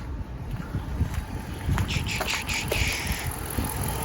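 2006 Dodge Charger engine idling on a newly replaced alternator, with scattered light clicks and a brief hiss about two to three seconds in.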